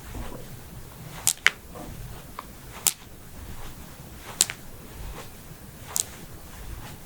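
Human joints cracking: a series of sharp, short pops, a quick pair about a second in and then single cracks every second or two, one of them doubled near the end.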